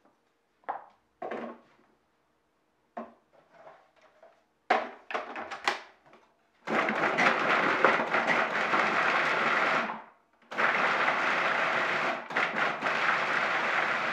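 A few knocks and clicks, then a Cuisinart food processor runs in two pulses of about three seconds each with a brief stop between, grinding sweet potato chunks into a coarse shred.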